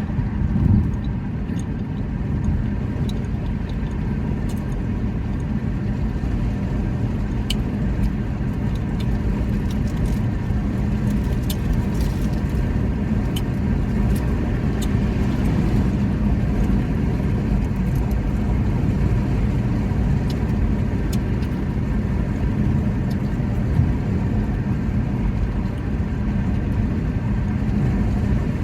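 Steady low rumbling noise throughout, with one short, low belch under a second in.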